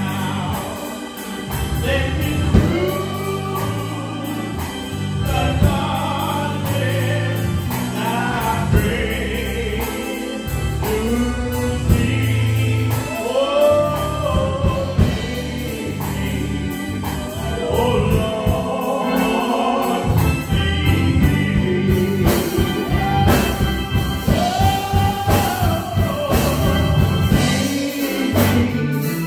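Gospel song: voices singing a gliding melody over steady low instrumental accompaniment. About two-thirds of the way through, a steady percussive beat joins in.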